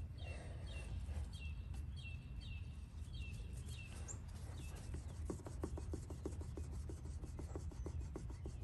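Rag scrubbing rust and grime off the painted sheet metal around a van's fuel door, in quick back-and-forth strokes about five a second in the second half. A bird chirps repeatedly during the first few seconds.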